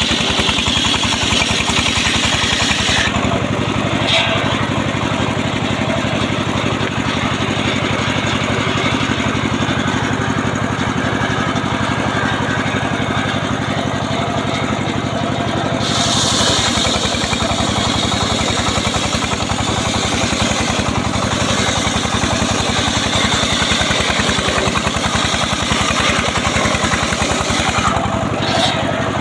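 Engine-driven portable circular sawmill running steadily while its blade rips acacia logs. A bright, hissing cutting sound comes in at the start, again about halfway through for several seconds, and briefly near the end, over the engine's steady running.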